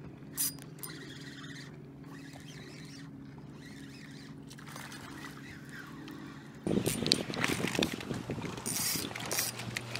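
Spinning reel being cranked to bring in a hooked crappie, its gears ticking, over a steady low hum. About two-thirds of the way in the cranking becomes much louder and busier.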